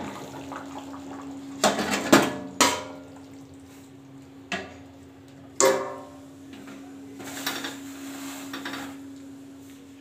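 Steel kitchen utensils clattering: about five sharp metallic knocks and clinks, the louder ones ringing briefly, over a steady low hum.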